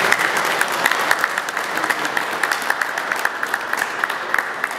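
Small audience applauding: many hands clapping together, easing off slightly toward the end.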